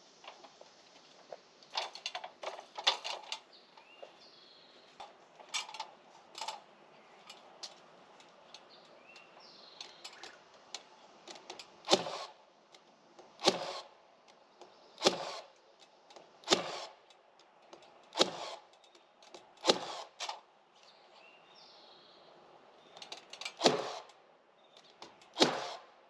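Cordless nail gun firing nails into the framing, single sharp shots: a few lighter knocks early on, then a run of six shots about a second and a half apart, and two more near the end. Birds chirp faintly between shots.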